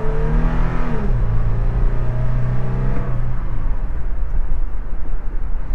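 Toyota 4Runner's 4.0-litre V6 heard from inside the cabin, pulling hard under acceleration: the revs climb, drop about a second in as the automatic upshifts, climb again, then ease off about three seconds in, leaving steady road and tyre noise.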